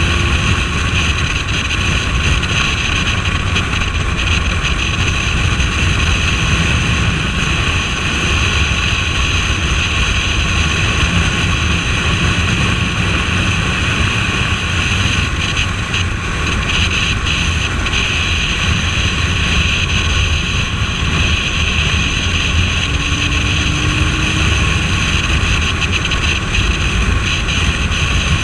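Suzuki Bandit 1250S motorcycle cruising at a steady speed. Wind noise buffets the microphone over the steady running of the inline-four engine, with no rise or fall in revs.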